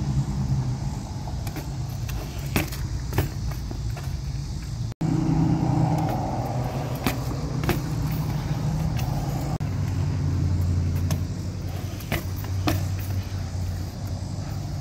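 Steady low hum of a motor vehicle running in the background, with scattered sharp knocks and clicks from a BMX bike riding on concrete.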